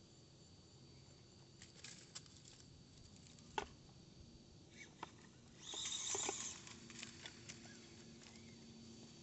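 Axial SCX24 micro RC crawler clambering over broken concrete, faint. It makes a few light clicks and one sharp knock a little over three seconds in, around when it ends up on its side in a crack. About a second of scratchy scraping and rustling in the rubble and leaf litter follows, then a few more light clicks.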